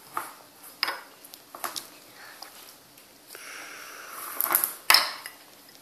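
Blue plastic toy rolling pin knocking and rolling on a wooden table as play dough is flattened: a few light knocks, then about a second and a half of rustling noise and two louder knocks near the end.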